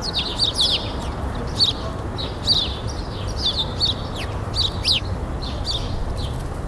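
Small birds chirping rapidly and continuously over the steady low rumble of city traffic.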